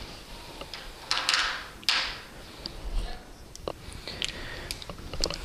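Light taps and clicks, with two short scraping sounds about one and two seconds in.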